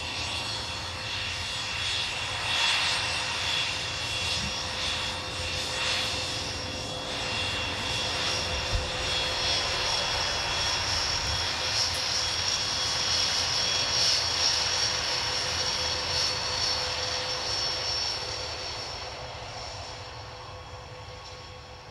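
Dassault Falcon 900EX's three Honeywell TFE731 turbofans running at low taxi power: a steady high-pitched jet whine over a low rumble. The sound fades over the last few seconds as the jet moves away.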